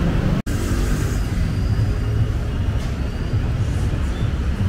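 Steady rumble of busy street traffic, cars and buses running past, with a momentary dropout about half a second in.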